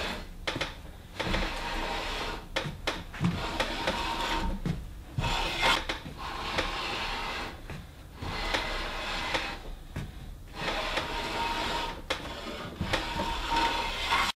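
Veritas bevel-up jointer plane shaving the edge of a white oak board in long strokes, about seven passes with short pauses between. The passes clean up machine-jointer marks to make the edge ready for a glue joint.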